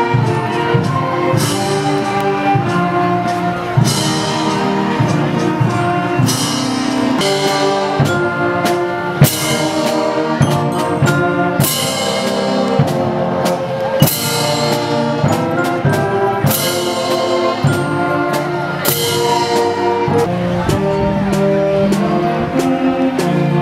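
Live concert band playing a march, brass and woodwinds holding long chords, with a cymbal crash every two to three seconds.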